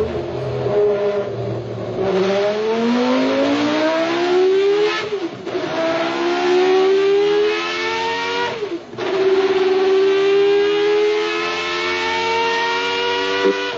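Formula One racing engine running at high revs: its pitch climbs, drops sharply about five seconds in and again about nine seconds in, then holds high and steady.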